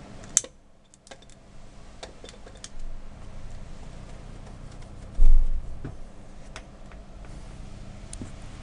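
Scattered light clicks and taps from hands working on a model airplane's fuselage and covering, with one low thump about five seconds in, over a faint steady hum.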